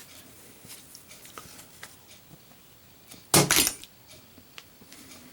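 A lit Zippo lighter dropped in a drop test, landing with one short, loud metallic clatter about three seconds in, with a few faint handling clicks around it.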